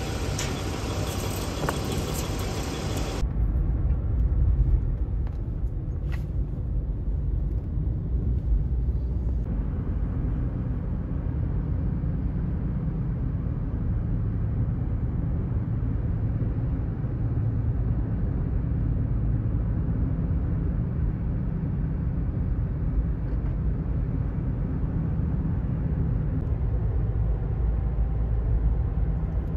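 Steady low rumble of road and engine noise heard from inside a moving car's cabin. For the first three seconds or so, a loud rustling of clothing close to the microphone.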